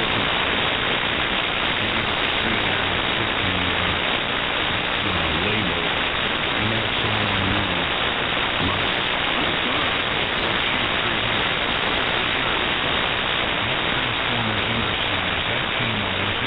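Ham radio receiver audio on the 75-metre band: a steady hiss of noise, with faint, wavering voice fragments barely showing through it. The noise is local radio-frequency interference swamping the band.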